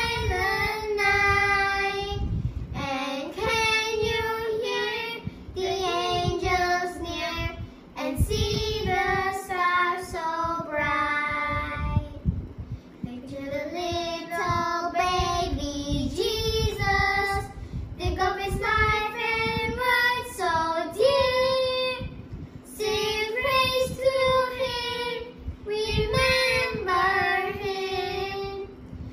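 A girl and a boy singing a Christmas song, phrase by phrase with held notes and short breaths between lines.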